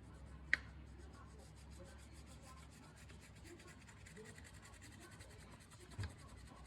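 Faint scratching and rubbing of a small CNC carving machine working, over a steady low hum, with a sharp click about half a second in and a short thump near the end.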